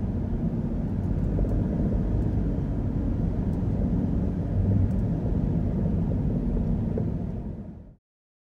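2008 Lexus RX 350 on the move: a steady low rumble of road and engine noise, which cuts off suddenly near the end.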